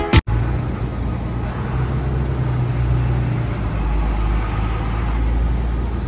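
Street traffic noise: a steady low rumble of engines with a hiss of road noise.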